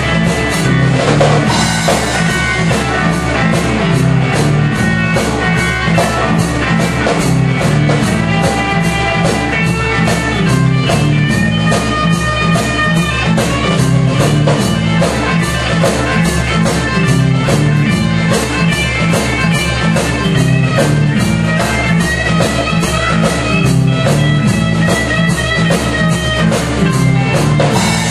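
Live electric blues boogie played by guitar and drum kit, with no vocals: a repeating low guitar riff over a steady, fast drum beat, with lead guitar notes above.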